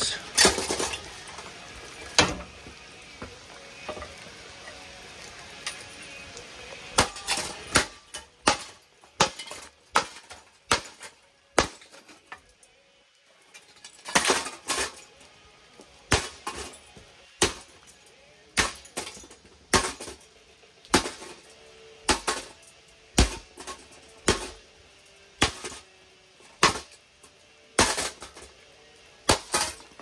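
Ceiling fan motor housing being smashed on stone ground: repeated hard metallic clanks and cracks, a couple near the start, then about one blow a second from about a quarter of the way in, with a short pause near the middle.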